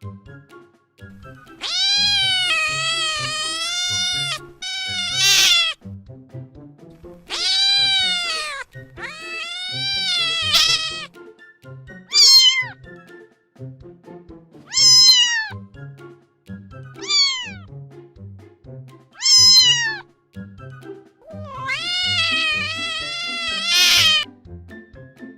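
Domestic cat meowing about nine times. Some meows are long and wavering, others short and falling in pitch, over background music with a low repeating beat.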